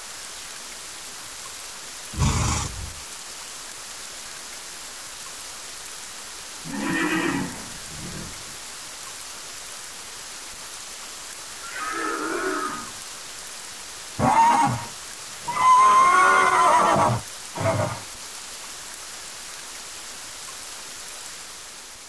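Kelpie creature sound effects built from horse sounds: a string of separate horse-like snorts and whinnies over steady rain. The longest, a pitched whinny of about a second and a half, comes about two-thirds of the way through, with a short call just after it.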